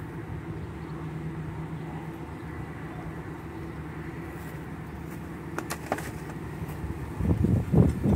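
Steady low mechanical hum, like a motor running in the background. A few sharp clicks come about six seconds in, and low thumps and rumble near the end are the loudest sounds.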